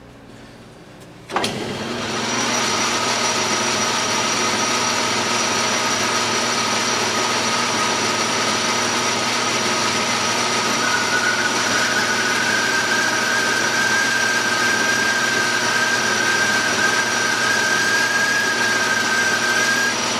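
Metal lathe switched on about a second and a half in, its motor and drive running steadily while a parting tool feeds into a thin spinning workpiece. A thin steady whine joins about halfway through.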